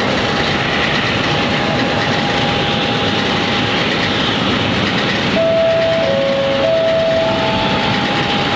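Bombardier Dash 8 Q400 turboprop's Pratt & Whitney PW150A engines and propellers running, a loud steady rush with a faint whine. About five and a half seconds in, a short run of clear tones steps between a few pitches over it.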